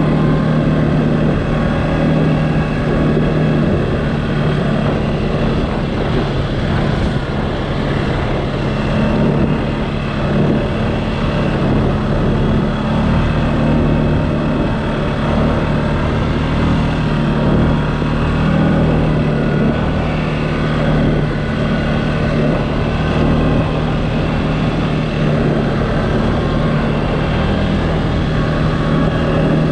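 Engine of a CFMOTO off-road vehicle running steadily while riding, its pitch holding fairly even.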